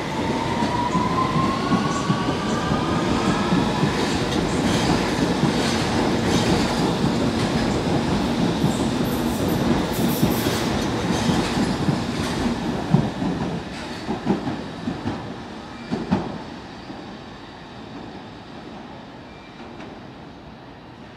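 London Underground S7/S8 Stock train pulling away from the platform. Its traction motors give a whine that rises in pitch as it accelerates, under the rumble and clatter of wheels over rail joints. A few sharp clunks come about two-thirds of the way through, and then the sound dies away as the train leaves.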